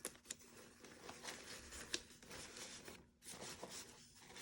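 Faint rustling and shuffling of paper being handled, with a few light clicks and taps.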